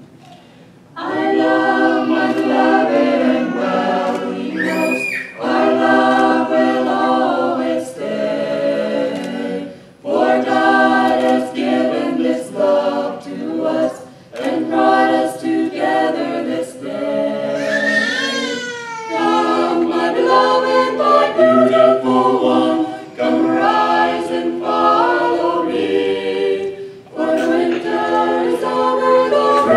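Choir singing a cappella in harmony, in phrases with short breaks between them.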